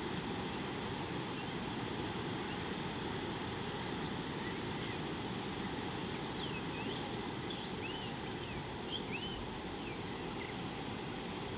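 Steady wind noise buffeting the microphone at an open watering hole. Over it come a handful of faint, short, high bird whistles, rising and falling, from about four seconds in until near the end.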